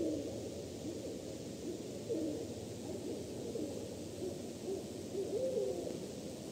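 Owl hooting: a series of short, wavering low calls over steady hiss.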